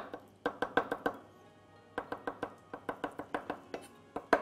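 Japanese chef's knife mincing raw tuna on a wooden cutting board: fast, even knocks of the blade on the board, about six or seven a second. There is a short run, a pause of about a second, then a longer run, and one sharper knock near the end.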